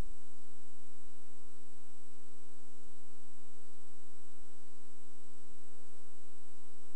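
Steady electrical mains hum with a buzzy stack of unchanging overtones, level throughout.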